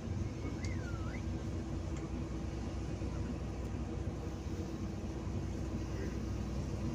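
City bus in motion heard from inside the passenger cabin: a steady low drone of engine and road noise with a faint steady hum, and a short wavering squeak about a second in.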